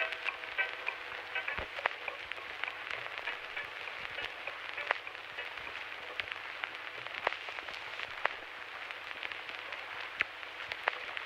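Crackling hiss with irregular sharp clicks, the noise bed left at the end of a sampled lo-fi track. Faint last notes of music die away about a second in.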